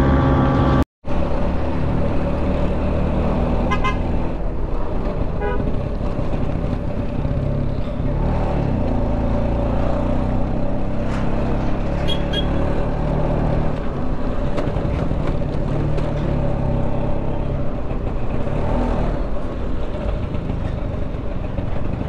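Scooter engine running under way, heard from on the scooter with road noise. A few short horn toots sound in the first half.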